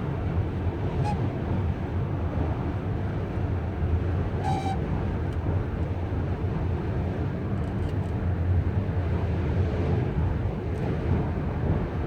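2015 Chrysler Town and Country minivan running with a steady low rumble, and a short high-pitched chirp about four and a half seconds in. This is the van's recurring weird noise, which five dealer visits have not cured.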